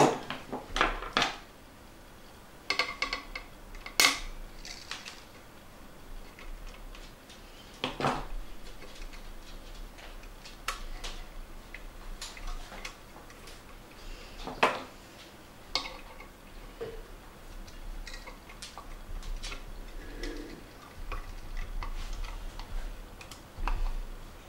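Hands working wires and small tools inside a metal amplifier chassis: scattered light clicks, taps and metallic clinks, the sharpest about four seconds in.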